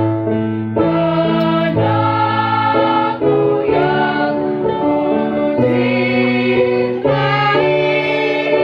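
A choir singing in several parts, the voices holding sustained chords that change about once a second.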